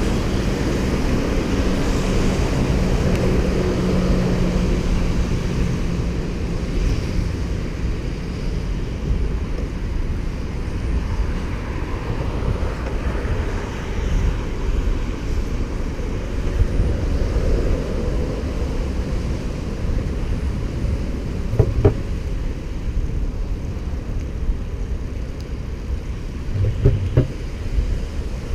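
Wind rushing over the microphone and road noise from a bicycle being ridden through traffic. A passing motor vehicle's engine hums in the first few seconds, and two short knocks come in the last third.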